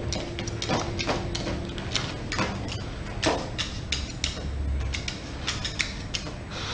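Irregular clicks and scratches, about two or three a second: a beagle puppy's claws scraping the fabric sofa and tapping the wooden floor as it paws and jumps up at the sofa.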